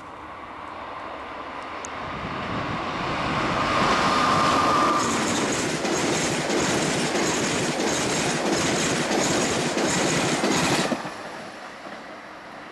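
Train passing at speed: a rising hum as it approaches, then a loud rush of wheels on rail with rhythmic clicking for about seven seconds, cutting off sharply near the end as the last car goes by.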